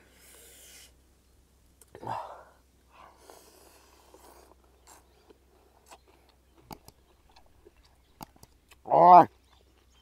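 A person slurping and chewing noodles from a bowl, with soft wet mouth noises and scattered sharp smacking clicks. A short, loud voiced sound breaks in about nine seconds in.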